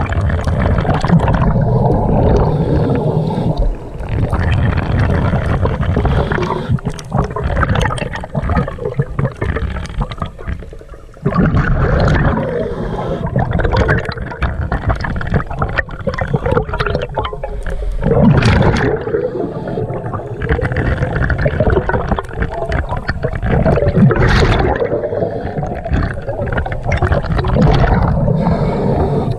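Scuba diver's breathing underwater: exhaled bubbles from the regulator gurgling in long surges, with short lulls between breaths.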